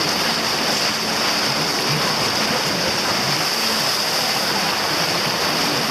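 Steady rushing of water along a moving river tour boat, an even hiss with no breaks.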